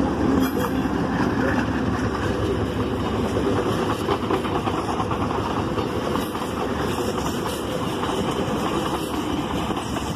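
Diesel-hauled FCCA tourist train passing close by: the locomotive goes past, then the passenger coaches, with a steady rumble and rapid clatter of wheels on the rails that slowly eases off.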